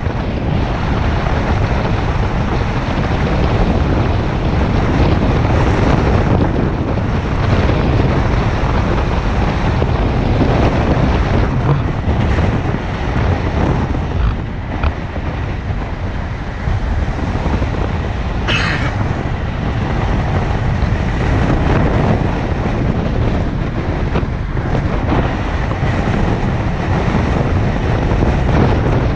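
Steady road and wind noise of a car driving along a street: a low rumble with a rush over it. A short, higher-pitched sound breaks through about two-thirds of the way in.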